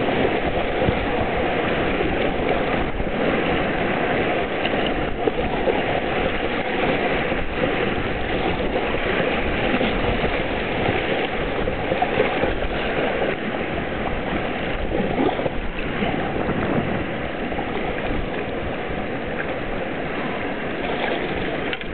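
Whitewater rushing and splashing around an inflatable kayak as it runs a rapid: a continuous close-up wash of churning river water with small irregular splashes.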